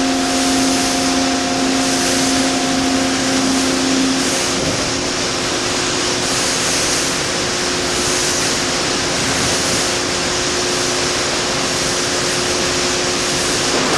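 Loud, steady machinery noise of a CNC tube bending machine at work: an even hiss with several steady hums, two of which stop about four seconds in.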